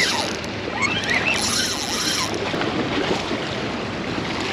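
Seawater washing and splashing against the rocks of a jetty, with wind rumbling on the microphone. A few brief high squeaks that rise and fall come in the first two seconds.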